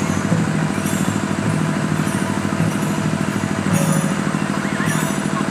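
Live music for a Tharu sakhiya dance: steady rhythmic hand drumming with voices singing, dense and loud, with a bright jingling shimmer every second or two.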